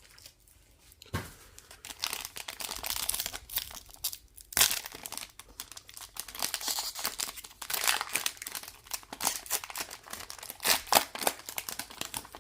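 Wrapper of a trading-card pack being crinkled and torn open, an irregular run of crackles with a sharp snap about four and a half seconds in.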